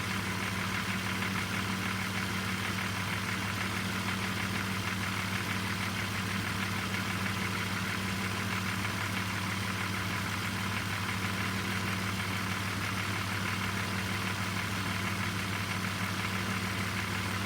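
BMW M54 straight-six idling steadily while hot, with a fine, even knocking from the engine: the knock that sets in 10–15 seconds after a hot start.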